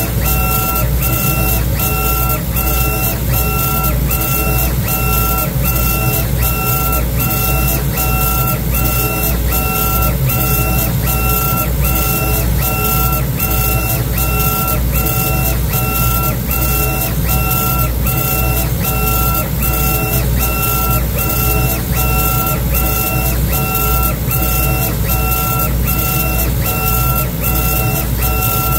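Laguna laser engraver working on a bamboo board: a steady whir with a motor whine that switches on and off evenly over and over as the laser head moves back and forth.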